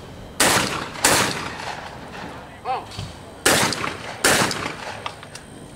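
12-gauge shotguns fired at skeet targets: two pairs of shots, the shots in each pair about two-thirds of a second apart, the pairs about two and a half seconds apart. A short shouted call comes just before the second pair.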